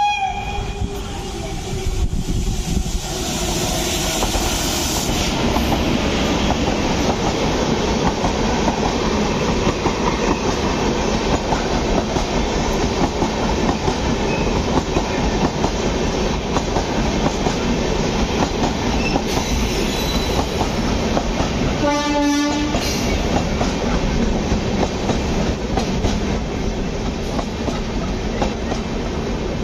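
Tejas Rajdhani Express passenger train passing along the platform. A short horn blast comes near the start, then the steady rumble and clatter of coach wheels over the rails as the coaches roll by. A second brief pitched tone comes about three-quarters of the way through.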